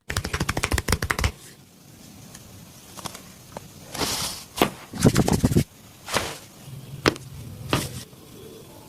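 A massage by hand: a fast run of sharp slaps or chops, about ten a second, for the first second or so, then short rubbing sounds and a few single sharp clicks spread through the rest.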